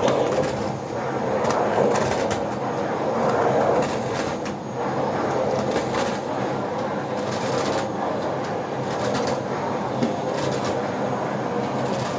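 Household vacuum cleaner running steadily, its loudness swelling and dipping, with a few light knocks.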